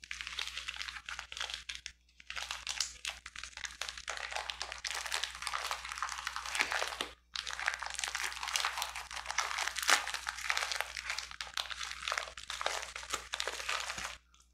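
Packaging wrap being crinkled and pulled open by hand to unwrap a small item: continuous irregular crackling with a couple of brief pauses.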